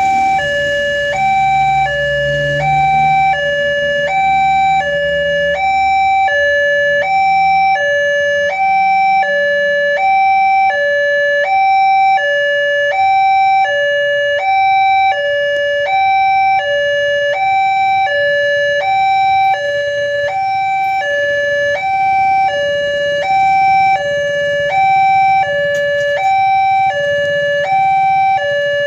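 Railroad level-crossing warning alarm sounding an alternating high-low two-tone signal, about one high-low pair a second, warning that a train is approaching.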